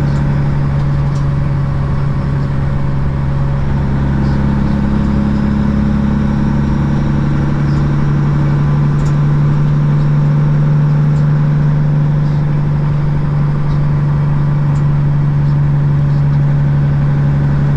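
Diesel engine of a Peterbilt 579 semi truck running with a steady, even drone, heard from inside the cab while driving.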